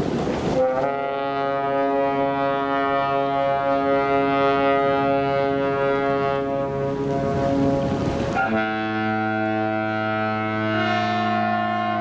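Large ship's horns sounding long, steady blasts. After a moment of wind on the microphone, one horn starts about a second in and holds; about eight and a half seconds in a deeper horn takes over.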